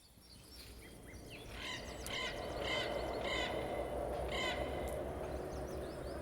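A bird giving a series of harsh calls, about five of them close together, over a steady rushing noise that fades in during the first couple of seconds.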